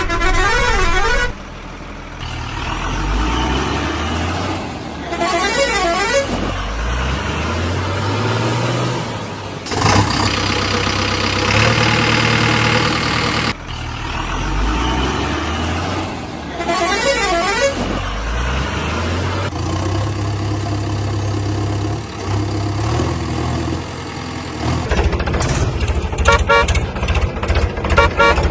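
Heavy diesel vehicle engines revving up and down, with a warbling multi-tone musical horn sounded twice and a long, dense horn blast in between. Near the end an engine settles into a fast, even chugging.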